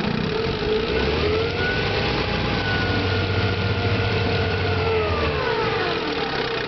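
1963 Johnson 5.5 hp two-cylinder two-stroke outboard motor running under way. Its pitch climbs about a second in, holds steady, then slides down near the end as the motor is throttled back.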